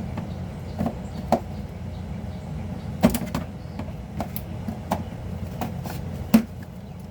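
Scattered clicks and knocks of hands and tools working on car parts, about eight in all, the loudest about six seconds in, over a steady low hum.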